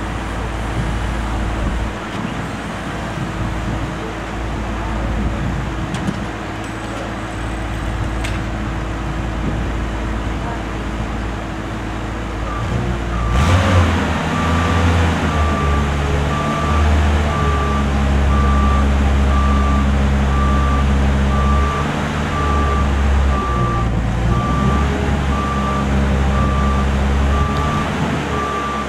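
Boom lift's engine running steadily; about halfway through it revs up and an evenly spaced series of high beeps starts, the lift's motion alarm sounding as the boom moves the basket.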